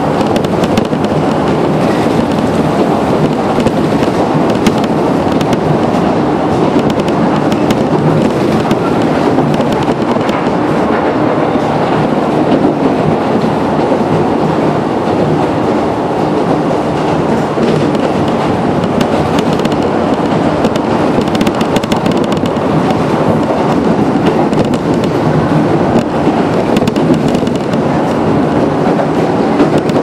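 Toyama Chiho Railway 17480 series electric train (ex-Tokyu 8590 series) running between stations, heard from on board: a steady rumble of wheels on the track.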